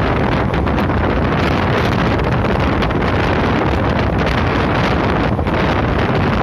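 Wind buffeting a phone's microphone held out of the window of a fast-moving passenger train, over the train's steady running noise on the track.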